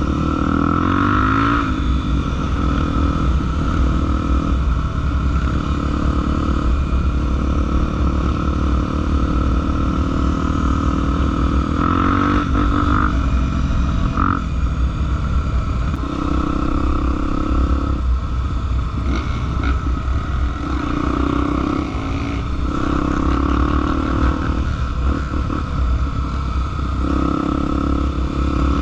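Honda XR 250 Tornado trail motorcycle's single-cylinder four-stroke engine running steadily while being ridden, its note shifting every few seconds with the throttle.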